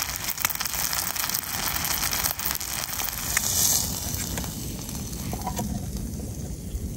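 Bacon, sausages and eggs frying in a pan, sizzling steadily with scattered pops and crackles; the sizzle eases a little about four seconds in.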